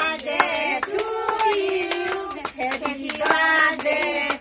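A small group of women and children singing a birthday song together, with hand claps scattered through the singing.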